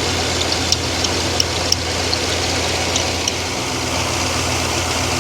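Freshly rebuilt LS4 5.3-litre V8 running steadily, with a dirty serpentine belt giving several short, high chirps in the first three seconds or so.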